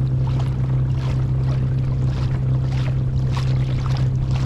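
Small boat's motor running steadily under way, with a constant low hum and repeated splashes of water against the hull.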